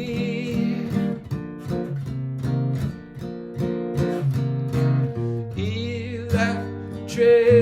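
Martin GPCPA4 acoustic-electric guitar strummed and picked in a steady rhythm, layered over a guitar loop played back by a looper pedal, with held low notes underneath.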